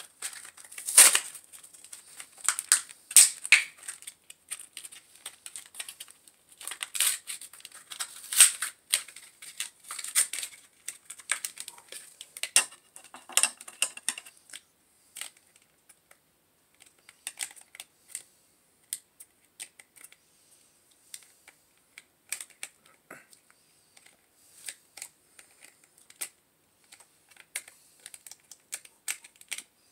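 Small toy packaging being handled and snipped with scissors: a long run of sharp clicks, snips and crinkles, busy and loudest in the first half, sparser and quieter later.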